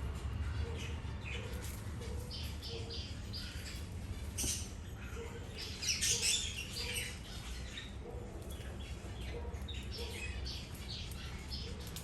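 Small birds chirping in quick, short high notes, with a louder flurry of chirps about six seconds in, over a steady low hum.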